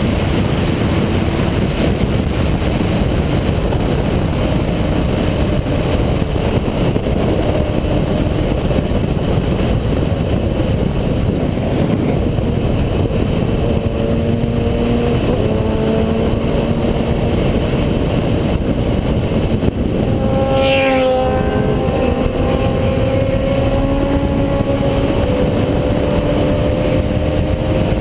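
Kawasaki Z750 motorcycle engine running hard and steadily, its pitch slowly drifting up and down with engine speed. A brief higher-pitched whine cuts in about twenty seconds in.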